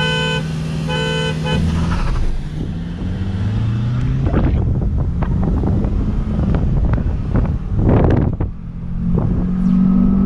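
A car horn toots twice in quick succession. Then a car engine, heard from inside the cabin, pulls hard at full throttle, its pitch rising, with scattered knocks and rattles.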